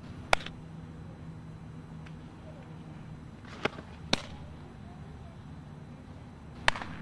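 A softball smacking into leather gloves as it is pitched into the catcher's mitt and thrown back: four sharp pops, the loudest about a third of a second in, two about half a second apart near the middle, and one near the end. Under them runs a steady low hum.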